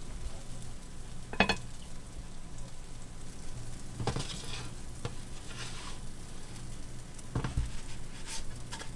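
Pancake batter and butter sizzling steadily in a hot cast-iron skillet, with a few short scrapes or clicks of a utensil against the pan about one and a half, four and seven and a half seconds in.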